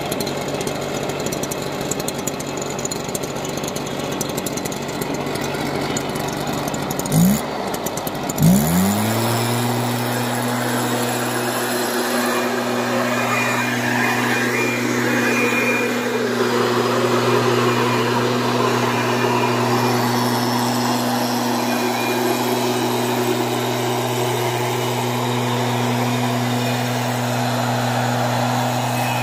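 Stihl SR 420 backpack mist blower's two-stroke engine running. About seven seconds in it revs up twice in quick succession, then holds a steady high-speed drone with the rush of the blower's air.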